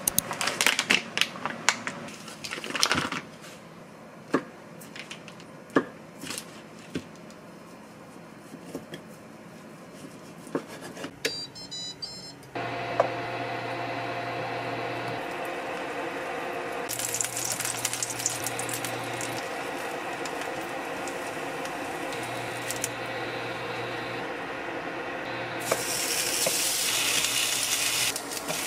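Scattered clicks and knocks of things being handled, then a kitchen appliance beeps and starts a steady electrical hum. Its low buzz cuts in and out every couple of seconds, and a hiss rises over it at times.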